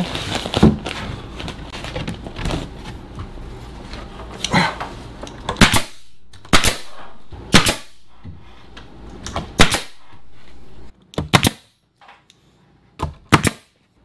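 Nail gun firing nails one at a time into pine shiplap ceiling boards: about ten sharp cracks at uneven intervals, some in quick pairs. A low background hum cuts out about two-thirds of the way through.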